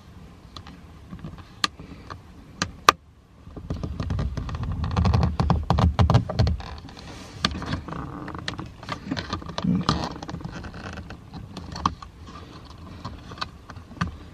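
Handling noises from fitting an adhesive trim piece onto a car's interior door panel: scattered sharp clicks and taps, with a stretch of rubbing and low rumbling about four to six seconds in as the piece is handled and pressed on.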